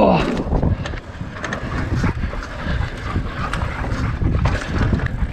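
Mountain bike running fast down a dirt trail: a steady low rumble of tyres on dirt and wind buffeting the helmet camera's microphone, with scattered clicks and rattles from the bike over bumps. A brief falling cry sounds right at the start.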